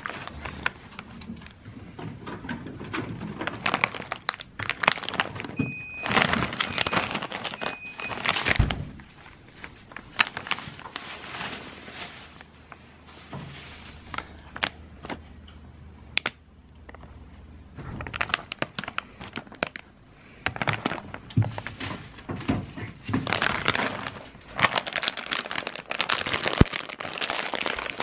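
Foil-lined plastic snack bag of Calbee Kappa Ebisen crinkling as it is handled and turned over, in irregular bursts of crackling with a quieter stretch about halfway through.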